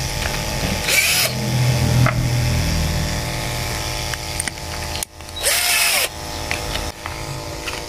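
Electric drill running, its bit widening a small hole in a Speakon connector. There is a steady motor hum, with two louder bouts of cutting, one about a second in and one about five and a half seconds in, where the drill's pitch rises and falls.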